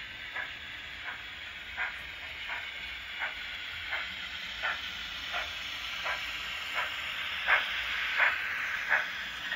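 Sound decoder of the 240-2213 model steam locomotive playing slow, even exhaust chuffs, about three every two seconds, over a steady steam hiss. The chuffs and hiss grow louder and are loudest near the end as the locomotive passes close.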